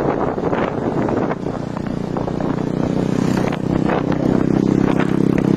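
Motorcycle engine running while riding, with scattered clattering knocks over the concrete road surface. The engine hum grows louder and steadier about halfway through.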